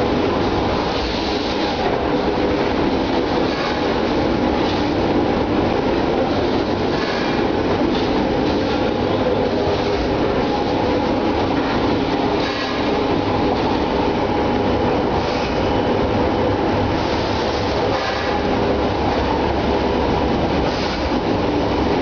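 Machinery of an egg tray production line running: a steady mechanical din with light, irregular clattering.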